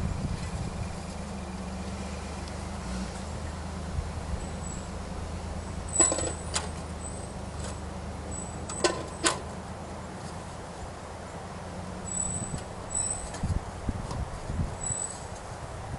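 Metal chimney-cap and aluminium liner fittings knocking and clinking as they are handled and pushed together: a few sharp metallic knocks with a brief ring about six and nine seconds in, and lighter taps near the end. A steady low hum sits underneath throughout.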